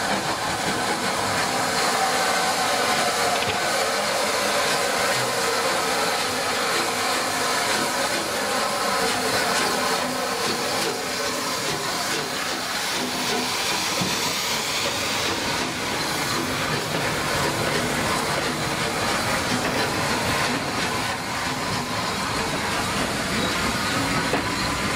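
Rebuilt Bulleid West Country class steam locomotive 34046 Braunton moving slowly off with its train, with a steady hiss of steam as the engine and then its coaches roll past.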